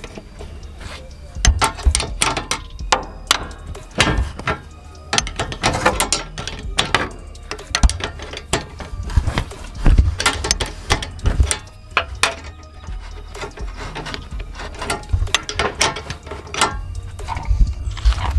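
Ratchet wrench clicking in short, irregular runs among knocks and clanks of metal, as the new A/C condenser and surrounding parts are bolted in.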